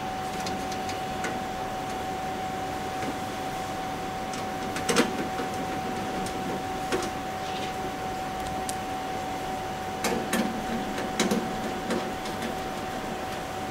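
A few light clicks and taps of a metal PC case and its cover screws being handled and done up by hand, with a couple near five seconds in and a cluster around ten to eleven seconds. A steady hum with one constant tone runs underneath.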